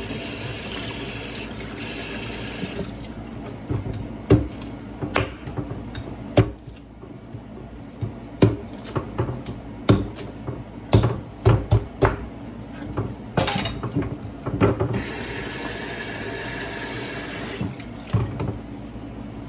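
A kitchen knife chopping through ears of corn on a wooden cutting board: a run of sharp, uneven knocks. Before and after the chopping, water runs from a kitchen tap.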